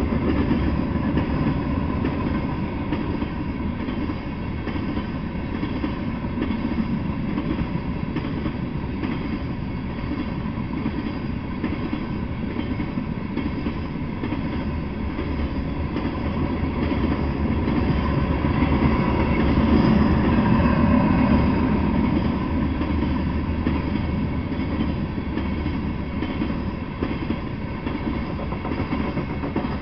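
Freight train of covered hopper cars rolling past at speed: a steady rumble and clatter of steel wheels on rail, swelling louder about two-thirds of the way through.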